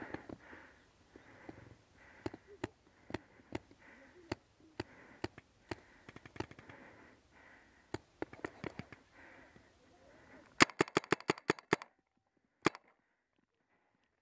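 Paintball markers popping across the field amid footsteps and rustling, then a fast string of about ten sharp paintball shots close by, about eight a second, and one more shot a second later, after which the sound cuts out abruptly.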